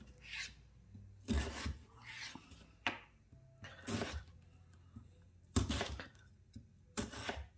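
Kitchen knife slicing through a raw unpeeled potato and meeting a plastic chopping board, about five separate cuts a second or so apart.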